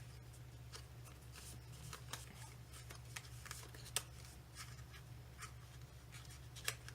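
Faint rustling and light taps of cardstock paper being handled, with a sharper tap about four seconds in and another near the end, over a low steady hum.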